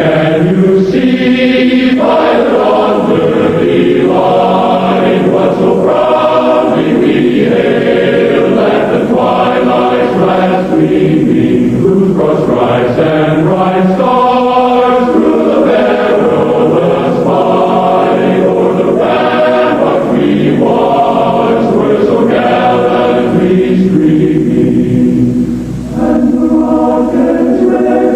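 Choral music: a choir singing held chords that change every second or two, steady and loud, with no words spoken over it.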